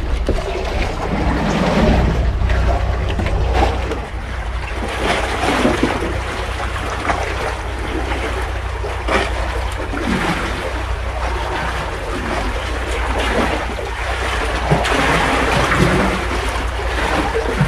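Sea water surging and sloshing among concrete tetrapods, with wind buffeting the microphone as a steady low rumble.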